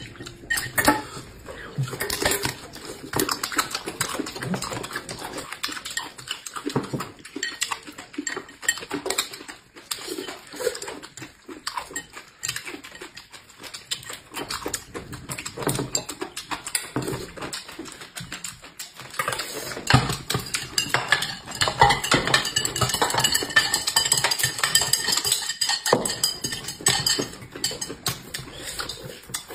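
Fast eating: chopsticks and spoons clattering and clinking against bowls and plates, with chewing and slurping mouth noises. The clatter grows louder and brighter about two-thirds of the way through.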